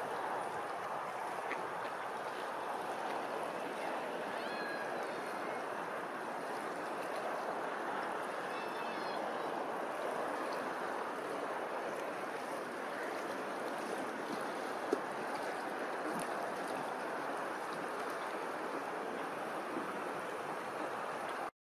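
Steady lapping and rippling of open water, with a few faint bird calls about four and nine seconds in.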